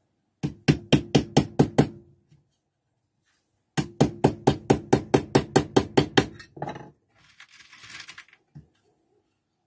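Small hammer driving panel pins, in two quick runs of light blows at about five a second, the second run longer, with a slight ring under each blow. A brief clatter and a short scraping rustle follow near the end.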